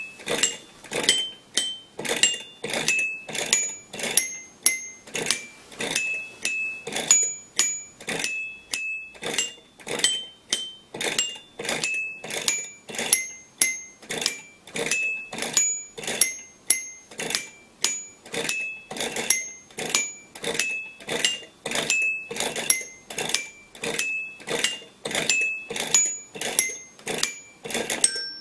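Homemade automated glockenspiel of flat aluminium bars, played one note at a time by a solenoid-driven mallet that a stepper motor swings from bar to bar. A steady run of about two ringing metallic notes a second, at changing pitches, each starting with a sharp strike.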